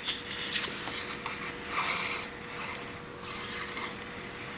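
Card-stock and paper panels being handled, sliding and rubbing against each other and the cutting mat in a dry, uneven rustle, with a few light ticks near the start.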